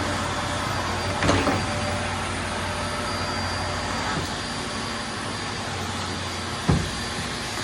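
Vacuum cleaner running steadily, with a knock about a second in and a sharper knock near the end.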